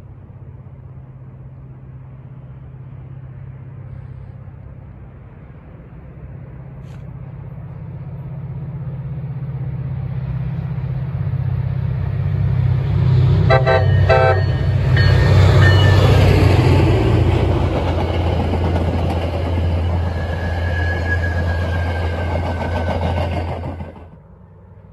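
MBTA train approaching and passing close by, with a low steady drone that grows louder as it nears. It gives a few short horn toots about halfway through, then its wheels rumble on the rails as it goes by.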